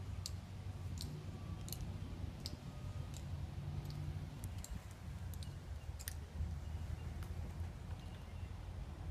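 Measured footsteps of honor guard members' hard-soled dress shoes on pavement: sharp clicks about one every 0.7 s, over a steady low rumble.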